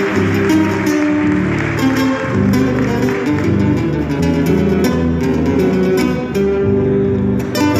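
Ensemble of four acoustic guitars playing a Cuyo tonada together: a plucked melody over moving bass notes.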